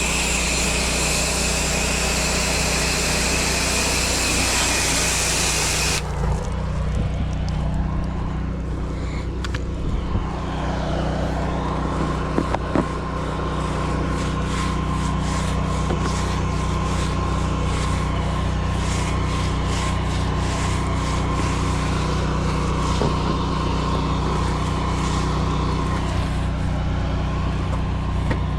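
Gas pressure washer: its engine runs steadily while the spray hisses loudly for about six seconds, then the spray cuts off suddenly as the trigger is released and the engine keeps running. A few light clicks follow a few seconds later.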